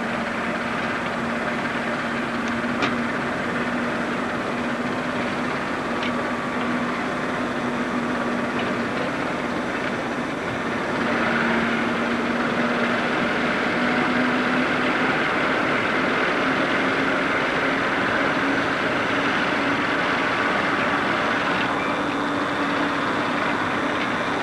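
Two coupled British Rail Class 08 diesel shunters, each with an English Electric six-cylinder diesel, running as light engines. Their engine note is a steady drone under a background hiss, and its pitch creeps up a little in the second half.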